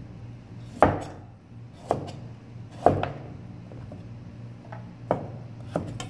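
Chef's knife cutting a carrot into sticks on a plastic cutting board: about six sharp knocks of the blade through the carrot onto the board, at uneven intervals, over a steady low hum.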